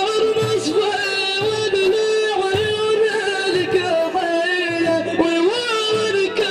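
Islamic madih praise singing: a voice holding a long, wavering melodic line, over low drum beats about once a second.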